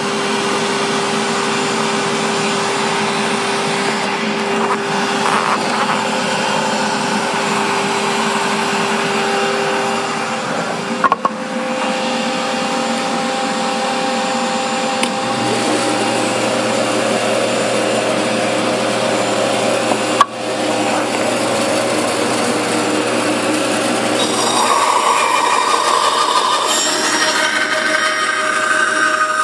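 Band saw running steadily and cutting through a wooden box, its hum changing pitch about halfway and again near the end, with two sharp clicks between.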